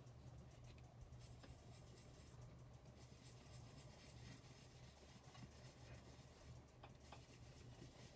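Near silence: a low steady room hum, with faint rubbing and handling of paper and card under the hands as ink is worked onto a card.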